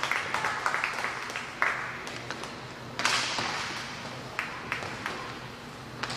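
Inline hockey play in a reverberant rink: sticks and puck clacking and tapping on the playing surface over a steady wash of noise, with a sharper hit about three seconds in that rings out through the hall.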